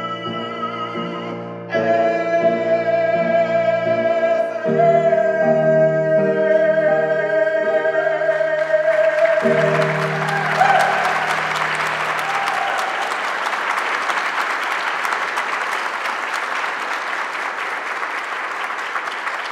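A man singing with instrumental accompaniment, holding one long note through the middle of the song before it ends. The audience breaks into applause about halfway through, and the clapping keeps going after the music stops.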